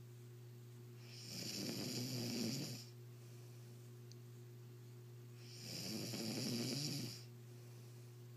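A man snoring in his sleep: two long snores, each about a second and a half, roughly four seconds apart, over a steady low hum.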